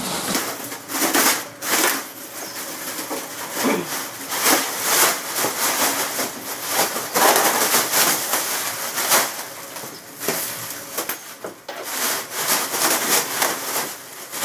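Heavy clear plastic wrapping being pulled up and off a bandsaw, crinkling and rustling loudly and unevenly as it is handled.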